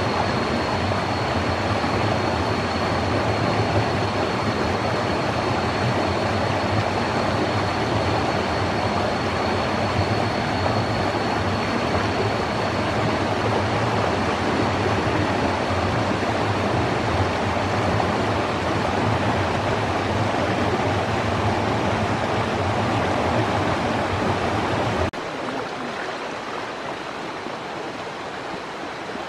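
Small waterfall pouring into a rocky pool: a loud, steady rush of churning water. About 25 s in, it drops suddenly to a quieter, thinner rush of a shallow stream.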